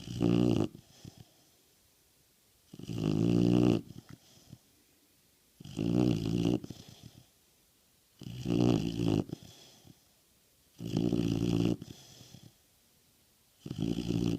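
American bulldog snoring in its sleep: six loud, rasping snores about every two and a half to three seconds, each lasting under a second, with a faint breath between them.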